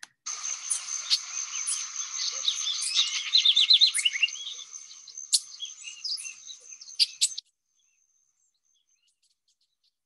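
Field recording of Passerini's tanager calling: a quick run of high chirping notes partway through and a few sharp single calls, over a steady high-pitched background tone and hiss. The recording cuts off abruptly about three-quarters of the way through.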